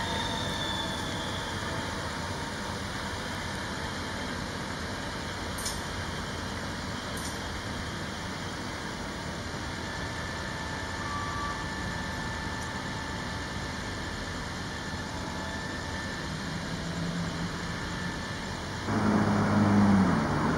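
Diesel engine of a Volvo FL road-rail truck running steadily under a constant hiss. About a second before the end it gets much louder, with a low engine note that dips in pitch.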